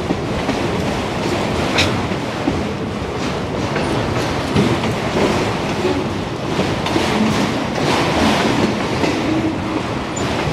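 Autorack freight cars rolling past close by, their steel wheels clattering over the rail joints in a steady rumble, with a sharp clank about two seconds in.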